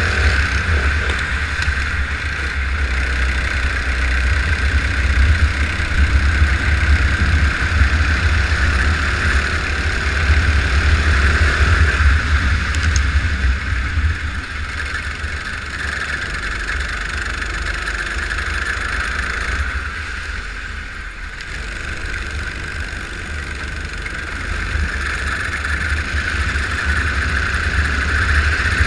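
Go-kart engine running on track, heard on board over a heavy low rumble; it eases off for a moment about two-thirds of the way through, then picks up again.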